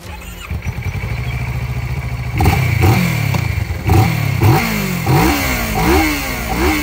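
Kawasaki motorcycle engine idling, then revved in a series of quick throttle blips, about two a second, starting about two seconds in.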